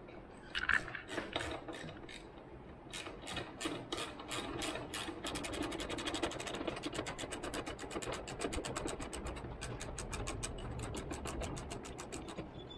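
Hand ratchet backing out a 10 mm bolt: its pawl clicks rapidly and evenly as the handle is swung back and forth, with the clicks coming faster about five seconds in.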